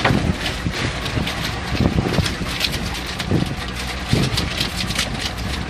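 Outboard motor idling with a steady low hum and wind on the microphone, under irregular knocks and clatters as a lobster pot is handled and emptied of western rock lobsters.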